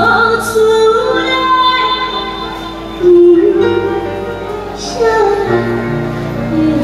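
A young girl singing into a microphone with instrumental accompaniment, holding long notes that bend in pitch.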